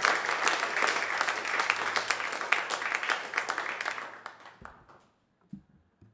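Small studio audience applauding at the end of a song, the clapping dying away about four seconds in, followed by a couple of faint thumps.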